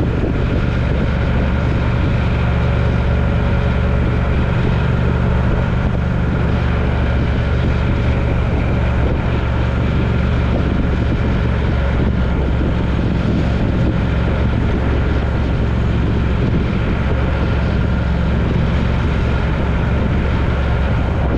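Steady engine drone and road noise of a vehicle travelling at a constant speed, with no change in pitch or loudness.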